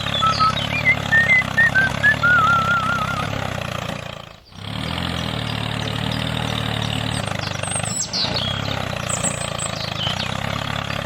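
An engine running steadily at an even speed, dropping out briefly about four and a half seconds in, with warbling high whistles over it in the first few seconds and falling whistles near the end.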